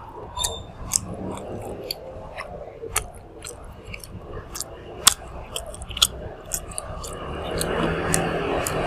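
Close-up chewing of grilled intestines eaten with the fingers: wet mouth sounds with irregular sharp clicks and smacks, the loudest about five seconds in.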